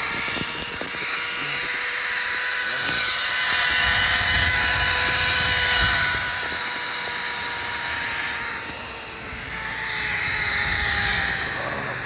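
ATV engine running at a steady speed with a constant whine, with high hiss above it; it grows louder for a few seconds, then eases off and drops slightly in pitch near the end.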